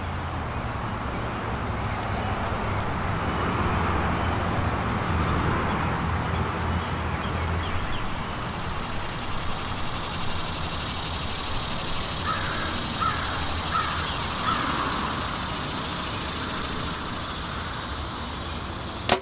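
Backyard ambience while a compound bow is held at full draw: a low rumble of distant traffic that fades about eight seconds in, then a high steady insect buzz and a few short bird calls. Right at the end the bow is released with one sharp, loud snap as a fixed-blade broadhead arrow is shot.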